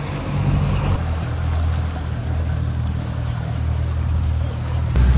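Motorboat under way: a steady low outboard engine drone under wind and water noise. The engine note changes abruptly about a second in and again near the end.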